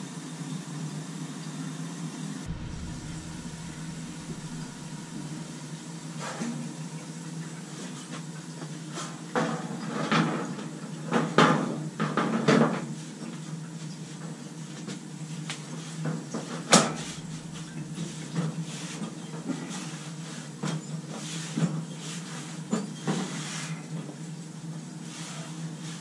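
Sheet-metal jacket panel of a Crown gas boiler being handled and fitted back on: a string of metal clunks and clatters, loudest around the middle, with a single sharp knock a few seconds later, over a steady low hum.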